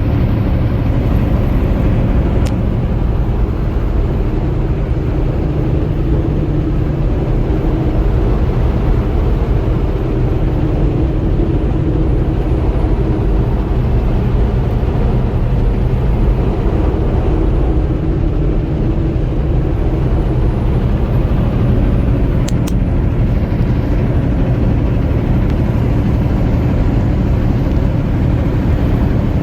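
Steady low rumble of a vehicle driving at highway speed, engine and road noise together.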